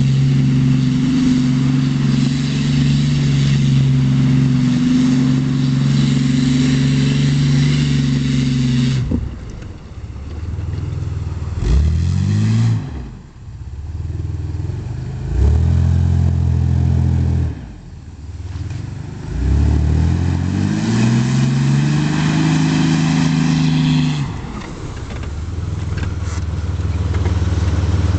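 Ford Explorer's engine held at high revs for about nine seconds while its tyres spin through wet grass and mud, then dropping away and revving up again in several rising surges. Near the end it settles to a lower, steady run.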